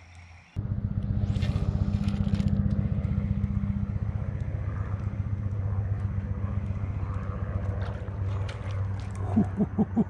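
Motor vehicle engine running close by. It comes in abruptly about half a second in and holds a steady low hum with a fast, even pulse.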